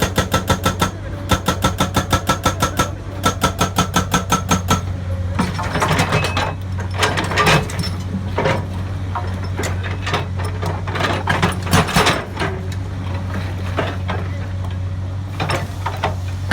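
Hydraulic rock breaker hammer on a Komatsu excavator pounding in rapid runs of about six to seven blows a second, three runs in the first five seconds, over the excavator's steady engine drone. After that the hammering gives way to irregular knocks and scraping of steel on rock.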